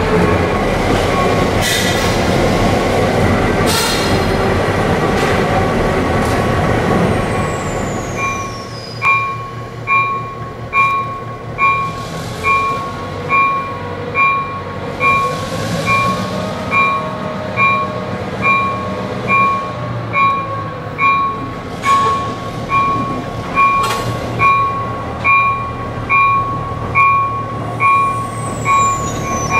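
EMD SW900 switcher locomotive's diesel engine running, heard from inside the cab at first. From about eight seconds in, the locomotive bell rings steadily about once a second over the engine as the locomotive rolls out of the shop.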